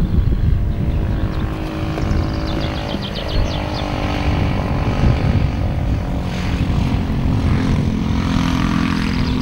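Wind buffeting the microphone with a heavy low rumble. Steady held tones run underneath and shift every few seconds, and a brief run of rapid high chirps comes about two and a half seconds in.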